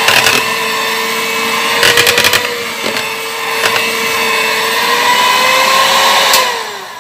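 Electric hand mixer running steadily, its beaters whirling through thick chocolate brownie batter, with a brief clatter about two seconds in. Near the end it is switched off and the motor's whine falls away as it winds down.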